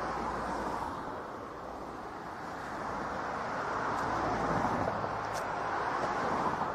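Airbus A340 airliner's four jet engines running as the jet rolls past on the ground, a steady rushing noise that grows louder from a couple of seconds in toward the end.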